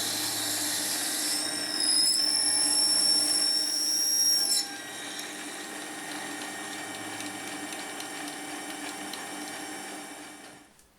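Metal lathe running while a drill bores a hole in brass stock. A high-pitched steady squeal from the drill cutting starts about a second and a half in and stops abruptly at about four and a half seconds. The lathe then runs on more quietly and winds down near the end.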